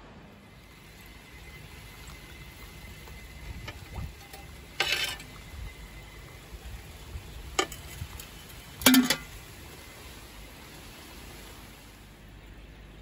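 Food sizzling faintly in a frying pan, with three short clatters of a utensil against the pan or dishes, the loudest about nine seconds in.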